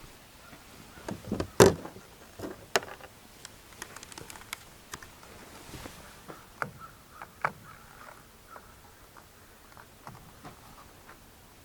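Scattered knocks, taps and clicks of hand work mounting a small solar panel. The loudest knock comes about a second and a half in, followed by lighter taps.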